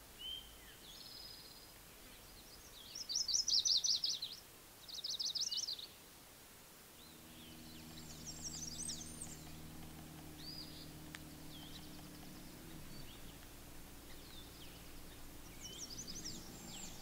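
Wild songbirds singing, with two loud rapid trilled phrases about three and five seconds in and scattered chirps after. A low steady hum comes in about seven seconds in and drops lower later on.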